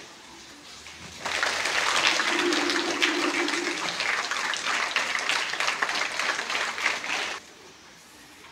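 A crowd clapping, starting about a second in, running for about six seconds and cutting off suddenly near the end.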